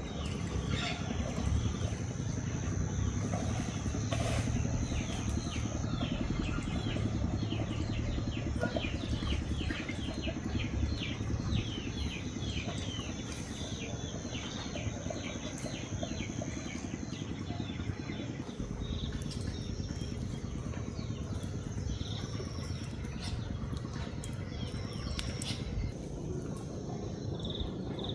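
Birds chirping in quick runs over a steady low rumble, with a thin high steady tone that comes and goes. The chirping thins out after about twelve seconds.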